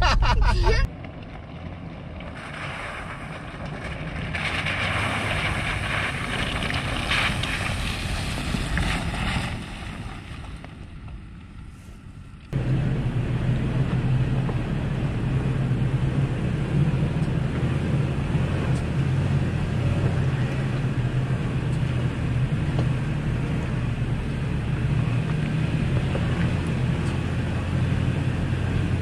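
Pickup truck engine running steadily under low-speed load while climbing a rocky dirt trail, a steady low hum heard from a camera mounted on the hood. Before a cut about twelve seconds in, there is a quieter stretch of rushing hiss and rumble.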